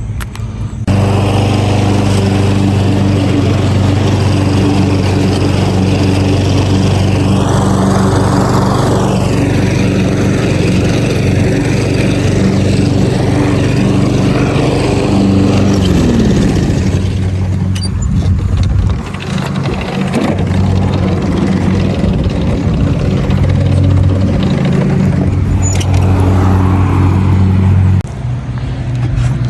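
Gas lawn mower engine running steadily while mulching thick grass, its note dipping and wavering briefly about halfway through before steadying again.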